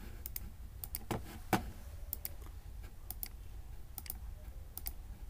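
Computer mouse clicking, sharp clicks often in close pairs, about two a second, with one louder click about a second and a half in.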